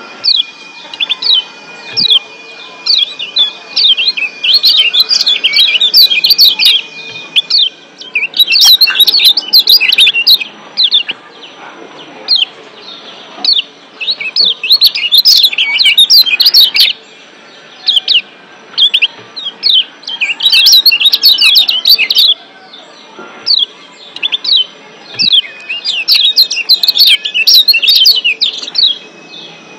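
Yellow white-eye (kecial kuning Lombok, a Zosterops white-eye) giving fast, wild flurries of sharp 'ciak' chirps, several bursts with short lulls between them. These are the excited calls that keepers play to rouse their birds into calling.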